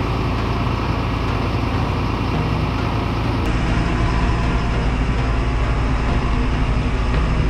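Steady low machine rumble of a mobile boat lift running as it lowers a cruiser in its slings. About three and a half seconds in, the sound turns duller and heavier in the bass.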